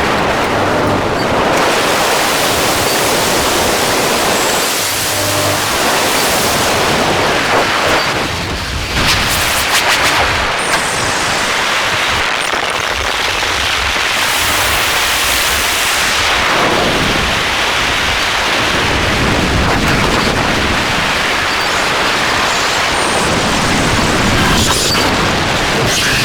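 Harsh noise music: a loud, dense wall of hissing, crackling static that swells and sweeps up and down in pitch. It dips briefly about eight seconds in, then breaks into a sharp crackling burst.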